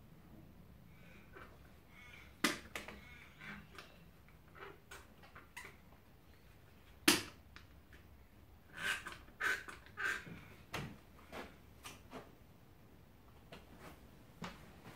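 Scattered clicks and knocks of one-handed bar clamps being fitted and tightened on a plywood wheel and flange. A sharp snap about seven seconds in, and a quick run of clicks a couple of seconds later.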